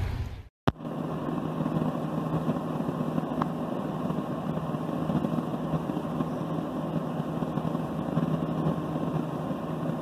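A steady low hum, like an engine idling, under an even rushing noise. The sound drops out for an instant about half a second in.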